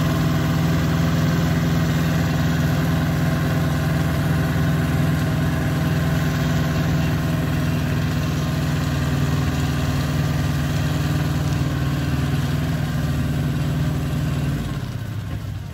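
Shibaura SL1743 compact tractor's diesel engine running steadily while its rear rotary tiller churns through the soil. The sound drops in level near the end.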